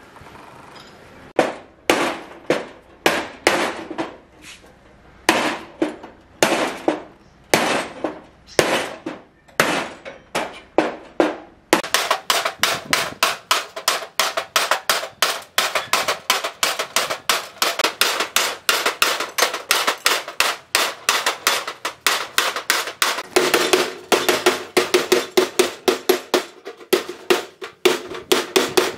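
Hand hammer striking the rusted sheet steel of a burnt car door panel. First come slow, spaced single blows; after about twelve seconds it becomes rapid, steady hammering at about three to four blows a second.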